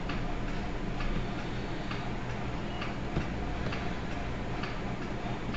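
Faint, fairly regular ticks, roughly one or two a second, over a steady low hum.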